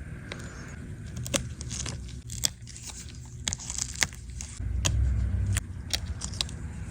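Small sharp clicks, crackles and crunches of tools and parts being worked on a tablet during a repair, with a dull low rumble about five seconds in.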